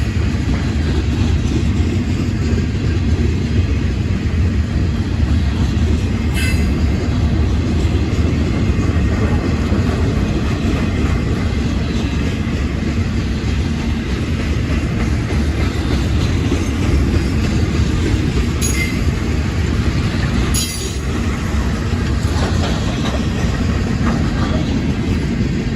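Freight train cars rolling past: a steady low rumble with a few sharp clicks from the wheels and rails.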